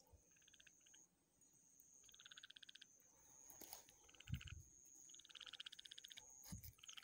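Frogs calling from the wetland: short, fast pulsed trills, each under a second or so, repeated five or so times. Two dull thumps, one about four seconds in and one near the end, are louder than the calls.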